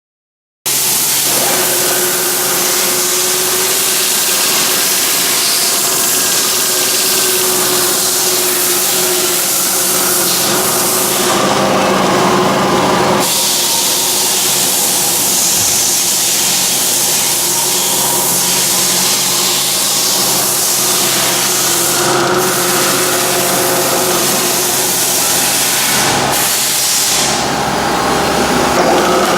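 Lagun-Republic FTV-2 vertical milling machine's 3 HP three-phase motor and spindle drive running: a steady hum with several even tones and a bright hiss. It comes on abruptly just after the start, and its tone shifts a few times.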